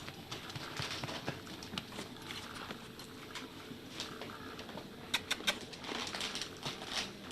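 A dog's small, irregular clicks and taps, with a quick cluster of sharper clicks about five seconds in; no burp is heard.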